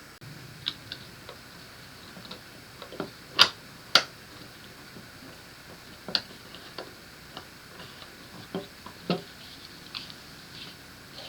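Metal clicks and clacks from the parts of a Kimel AP9 pistol being fitted back together during reassembly. Two sharper clacks come about three and a half and four seconds in, followed by scattered lighter clicks.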